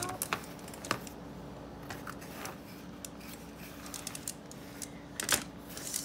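Small magnetic balls clicking irregularly as a chain of them is pulled apart and pressed back together by hand in a cardboard box.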